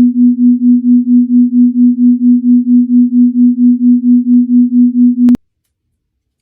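A loud, low electronic tone pulsing about four or five times a second, cutting off suddenly after about five seconds.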